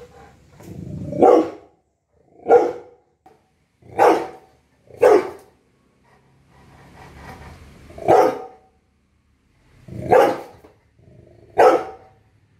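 A young Rottweiler, nine months old, barking: seven single barks spaced unevenly, one to three seconds apart.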